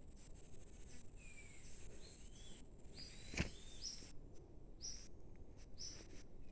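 Birds calling: short high chirps, some falling in pitch, repeated every second or so. A single sharp knock about three and a half seconds in is the loudest sound, and a faint steady high tone runs underneath.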